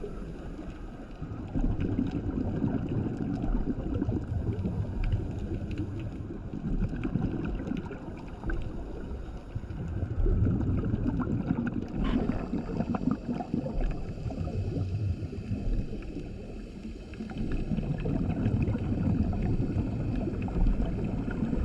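Scuba regulator breathing recorded underwater: exhaled bubbles rumble in surges every few seconds, easing off between breaths.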